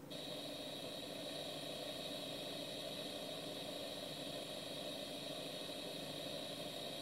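Steady hiss and static from a TV news broadcast's live feed, heard through the TV's speaker; it comes in suddenly and stays even, with no voice.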